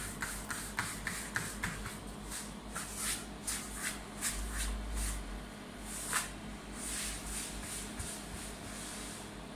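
Hands patting and pressing pizza dough on a floured stone counter, a quick run of soft pats at about three to four a second, then the dough being lifted, stretched and slapped back down with rubbing, sliding swishes.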